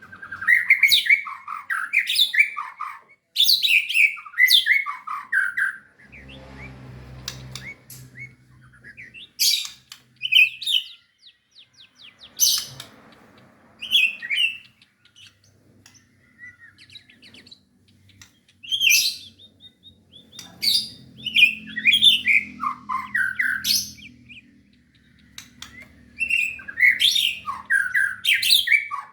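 White-rumped shama singing in bursts of varied, sweeping whistled phrases with short pauses between them.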